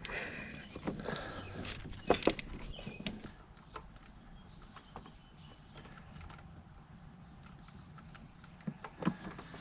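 Scattered light clicks and clinks of hand tools and a socket extension against engine parts while a spark plug is being worked by hand, busier in the first few seconds and sparser after.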